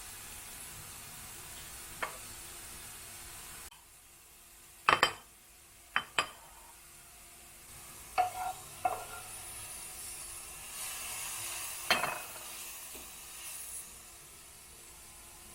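Kitchenware being handled: a series of sharp knocks and clinks at uneven intervals, with a brief hiss near the end.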